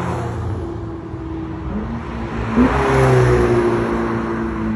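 Supercar engine revving as the car accelerates, its pitch rising and stepping up with gear changes, loudest about two and a half seconds in.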